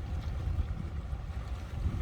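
Wind buffeting the microphone, a steady low rumble that flickers in level.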